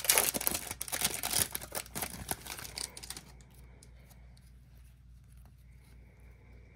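Foil wrapper of a Topps baseball card pack being torn open and crinkled by hand, a dense crackling rustle for about three seconds that then stops, leaving only a low background once the cards are out.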